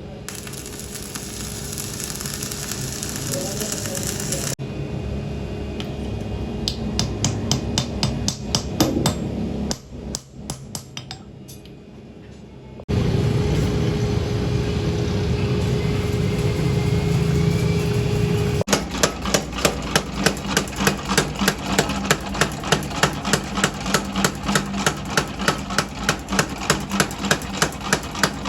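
Steel being hammered in a blacksmith's forge while an axe is made from truck leaf-spring steel, in several short sections. A steady, loud machine noise with a held hum runs in the middle, and an even run of sharp hammer strikes, about two to three a second, fills the last third.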